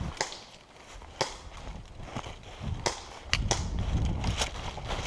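Hurried footsteps crunching through deep dry leaf litter, with irregular sharp snaps and crackles. A low rumble of movement against the microphone joins in and grows louder about three seconds in.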